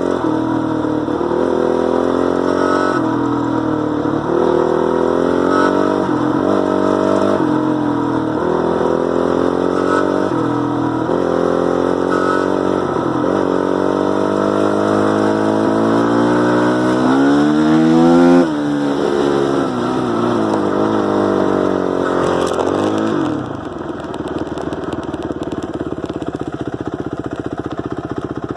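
2006 Honda CRF450R's single-cylinder four-stroke engine revved in a series of quick blips, with one longer climb about two-thirds through that cuts off sharply, then dropping to a steady idle near the end. The owner hears a high-pitched screech from it whose source he cannot place.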